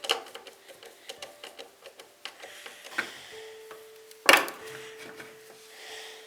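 Irregular small clicks and taps of a heat gun and its parts being handled, with a sharper knock about three seconds in and a loud knock just after four seconds.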